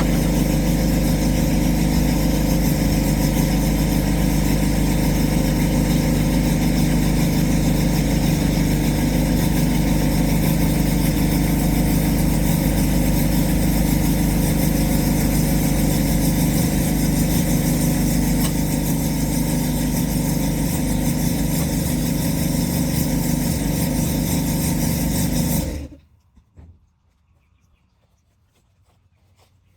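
Engine running steadily, then cutting off abruptly a few seconds before the end, leaving near silence with a few faint clicks.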